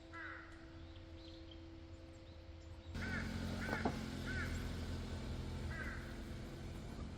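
Crows cawing: one caw near the start, then four more harsh caws spaced over the next few seconds, over outdoor background noise that comes up about three seconds in.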